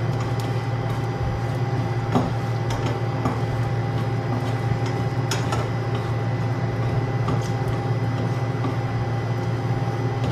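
Slices of chorizo de Bilbao frying in a little oil in a stainless steel pan, sizzling and crackling steadily. A nylon slotted turner clicks and scrapes against the pan now and then, over a constant low hum.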